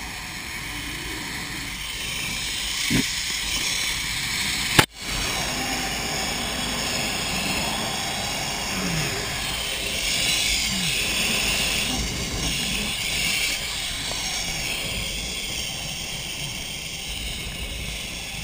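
Zip line trolley's pulleys running along a steel cable with a steady rush of wind over the camera's microphone. About five seconds in there is a sharp click and the sound cuts out for a moment.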